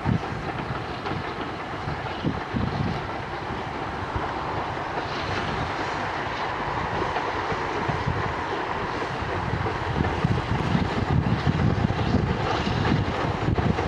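Double-headed steam train led by Southern Railway King Arthur class 4-6-0 No. 777 Sir Lamiel, working hard under heavy exhaust. The locomotive exhaust and the wheels on the rails grow louder over the last few seconds as the train comes closer.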